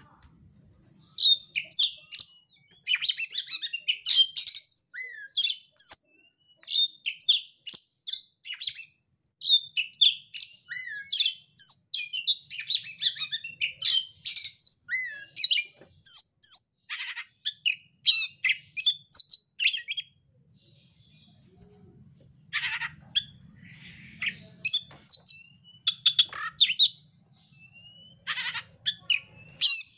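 Oriental magpie-robin singing: long, loud runs of rapid, varied whistles, trills and chirps, broken by short pauses, with a longer lull about two-thirds of the way through.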